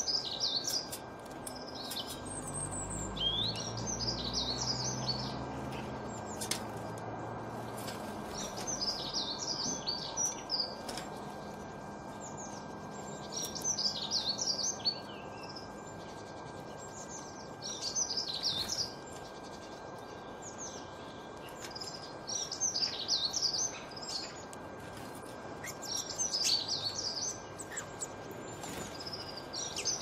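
A songbird singing short, bright phrases of song, one about every four seconds. A low rumble runs underneath from about two to eight seconds in.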